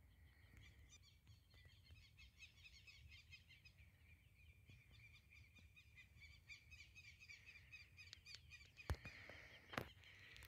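Faint countryside ambience: a steady, high-pitched chorus of rapid chirping from small animals in the fields, with two short knocks near the end.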